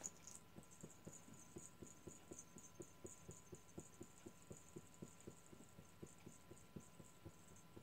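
Soft, even patting on the back of a reborn baby doll held up for burping, about three pats a second, over a faint steady hum.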